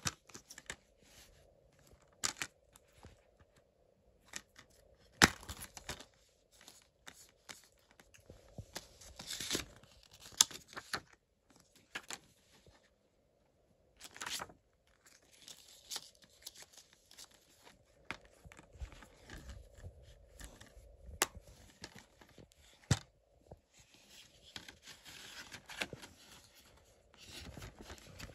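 Hands handling a plastic Blu-ray case and its paper insert: scattered sharp clicks and snaps of the case with bursts of rustling.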